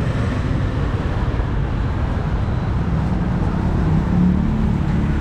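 Steady road traffic noise from cars and motorbikes on a busy street, with one engine note growing louder about four seconds in.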